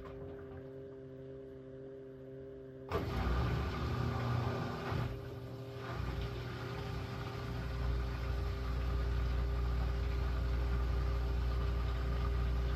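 Washing machine in its spin cycle: the motor gives a steady multi-tone hum, and about three seconds in it abruptly grows louder and noisier. A heavy low rumble from the spinning drum builds later on.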